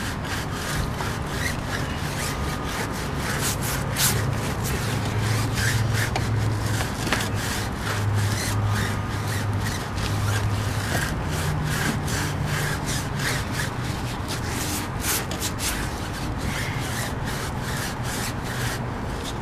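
Stiff-bristled tire brush scrubbing a wet tire sidewall lathered with tire rubber cleaner, in quick repeated rough strokes.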